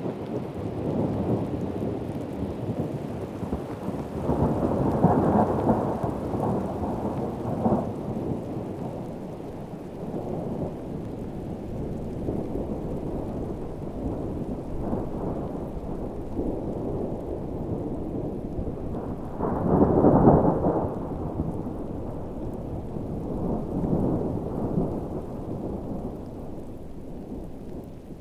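Heavy rain falling steadily with rolling thunder; the rumbles swell several times, loudest about five seconds in and again about twenty seconds in.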